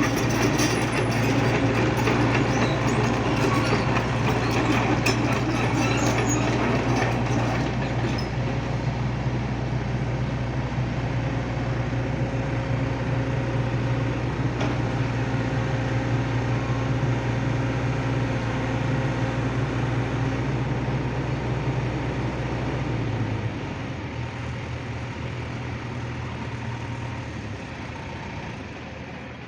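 Excavator diesel engine running steadily with a deep drone. About three-quarters of the way through, the drone cuts out and a quieter, even noise is left.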